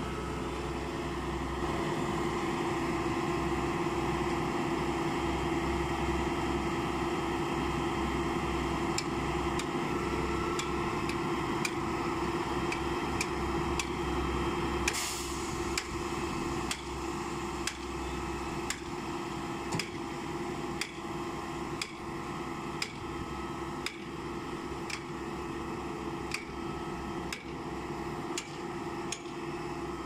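Putzmeister M 42-4 truck-mounted concrete pump running with a steady mechanical drone. From about nine seconds in there is a regular knock a little faster than once a second, the beat of the pump's piston strokes changing over, with a short hiss about halfway through.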